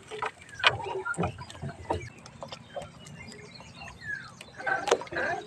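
A wet gill net being hauled by hand over the side of a wooden outrigger boat: scattered clicks and knocks as the net and its fittings catch on the hull and rail, with a brief voice-like sound near the end.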